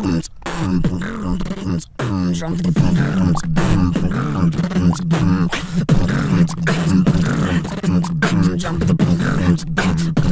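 Human beatboxing: sharp mouth-made kick and snare hits over a steady hummed bass note, with a wavering higher vocal line on top. The bass comes in about two seconds in, after a brief break.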